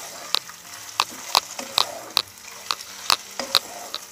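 Raw mutton pieces frying in hot oil with a steady sizzle, stirred with a wooden spatula that knocks against the pan about twice a second.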